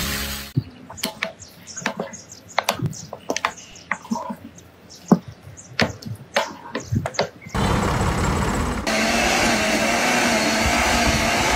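Scattered sharp clicks and taps, then, from about eight seconds in, a small garden tiller's motor running steadily with a whine as its tines churn the soil.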